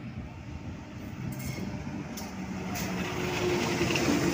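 Diesel-electric locomotive hauling a passenger train, approaching and passing close by: a steady low engine hum that grows louder as it nears, with a few sharp clicks.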